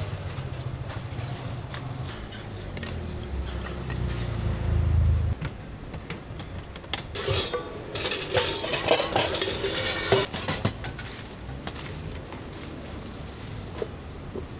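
Stainless steel bowls clattering and ringing as they are handled and stacked on a steel cart counter, loudest from about seven to ten seconds in, with a few lighter clinks after. Before that, a low rumble that cuts off abruptly about five seconds in.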